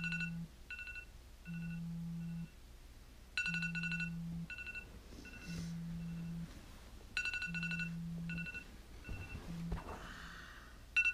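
Phone alarm going off: a two-note electronic chime sounds three times, each followed by a few fading repeats, while the phone's vibration buzzes in pulses about a second long. Near the end the alarm stops and there is a brief rustle, then one last chime.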